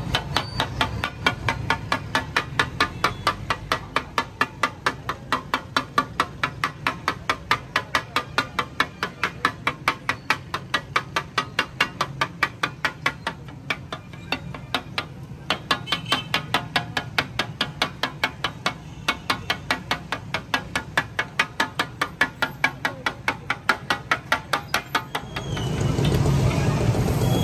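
A flat metal spatula chopping onions on a large iron tawa griddle. It strikes the metal in a fast, even clatter of about three to four a second, with a short pause about halfway. Street traffic noise comes back near the end.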